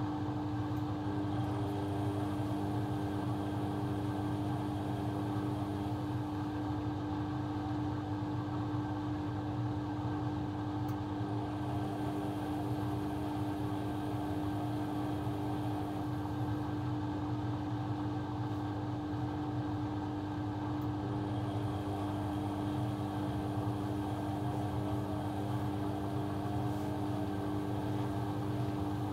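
A household appliance's electric motor running steadily, with a constant hum and a low rumble under it.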